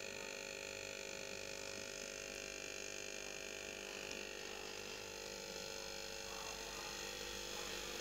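Steady electrical hum with several thin, high whining tones held over it, unchanging throughout.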